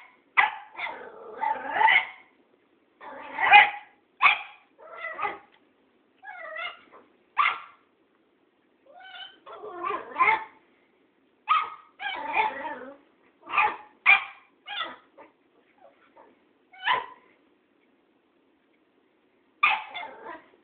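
Cairn terrier puppy play-barking and yipping at a cat in short, irregular bursts, with brief pauses between them and a last bark near the end.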